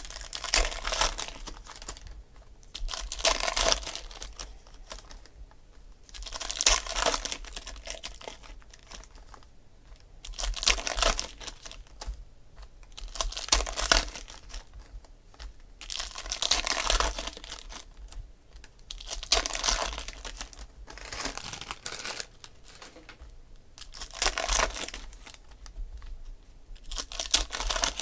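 Packs of Panini Select football cards being opened and the cards flipped through by hand: foil wrapper and card stock rustling and crinkling in short swishes, about one every three seconds.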